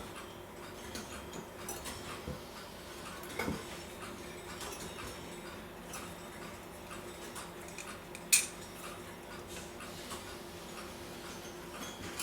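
Small metal clock parts clicking and clinking as they are handled and fitted together during reassembly of the clock's gear train, with one sharp click about eight seconds in, over a faint steady hum.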